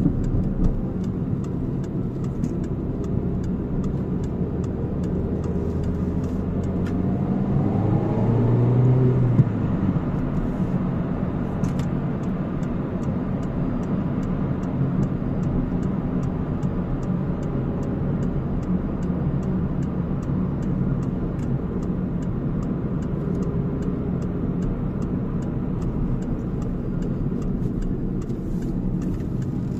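Car driving along, with a steady engine hum and road noise. About a quarter of the way in, the engine note rises as the car accelerates, grows louder, then falls back and settles.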